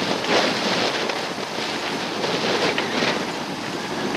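Wind buffeting the microphone at the bow of a sailboat under way: a steady rushing hiss that swells and eases a little.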